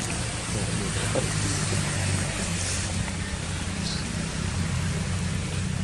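Steady low outdoor rumble with a hiss over it, and no distinct separate sounds.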